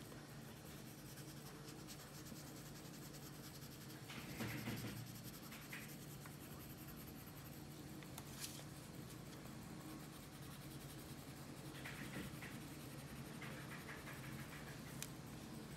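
Yellow colored pencil scratching and rubbing on paper as it shades in an area with steady back-and-forth strokes; soft, with louder stretches of strokes about four seconds in and again about twelve seconds in.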